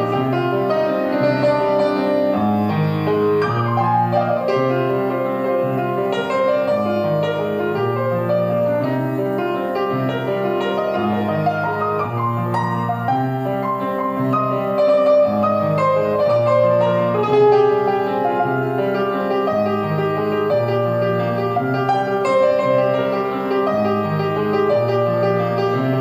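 Grand piano playing a steady instrumental piece with a six-string fretless electric bass, the chords changing every second or two.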